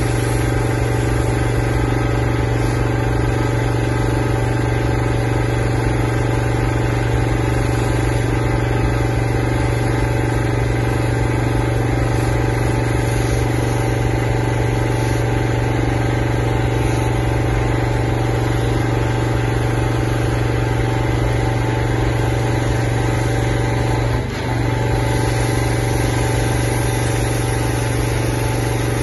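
Pressure washer engine running at a steady speed, driving a rotary flat surface cleaner cleaning roof tiles, with the hiss of the water spray under it. The drone holds constant, with one brief dip late on.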